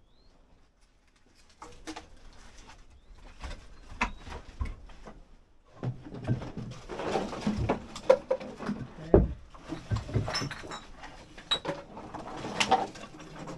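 Knocks, clatter and a few sharp bangs of household items and wood being shifted and pulled out, sparse at first and busier from about halfway in. A bird calls among the knocks.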